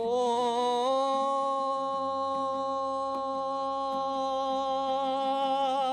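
A singer sliding up into one long held note with a slow, even vibrato, part of a Kazakh folk song.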